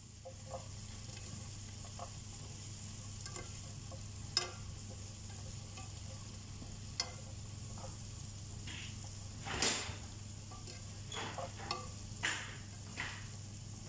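Broccoli sautéing in butter in a stainless steel pan, sizzling steadily, while a slotted spoon stirs it, scraping and knocking against the pan every second or two. The loudest scrape comes a little before ten seconds in, followed by a quick run of knocks near the end, over a steady low hum.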